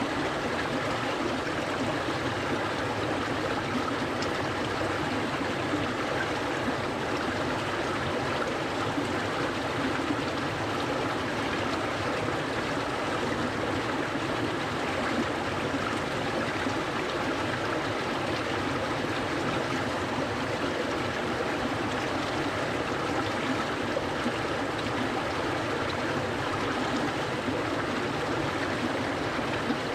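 A clear, cold mountain stream flowing steadily, water burbling and rushing over stones.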